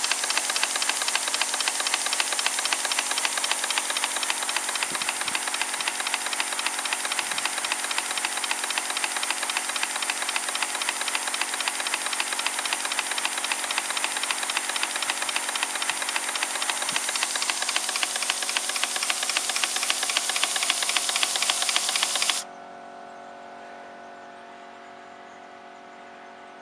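EIWI twin-cylinder model steam engine running fast, its exhaust beating rapidly over a steady hiss. About 22 seconds in the sound cuts off suddenly, leaving only a faint steady hum.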